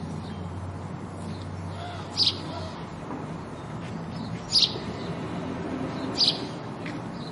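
House sparrow chirping: three short, sharp chirps a second or two apart, over a steady background hiss. A low hum runs under the first part and stops before the middle.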